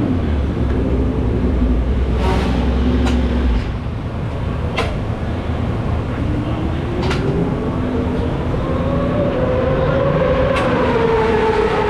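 Racing motorcycle engines running in the pit lane and on the circuit: a low drone at first, then an engine note that climbs slowly in pitch over the last half. Several sharp knocks are heard in between.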